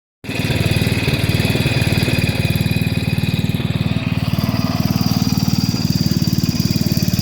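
Small Speedex garden tractor's engine running steadily with a fast, even firing beat, cutting in abruptly right at the start.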